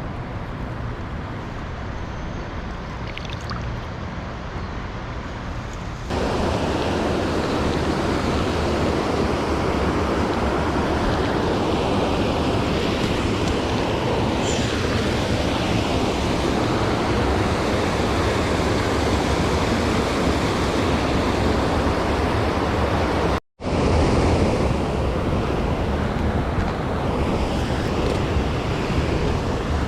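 Steady rush of a mountain stream's flowing water, with some wind on the microphone. It turns suddenly louder about six seconds in and cuts out for an instant about three quarters of the way through.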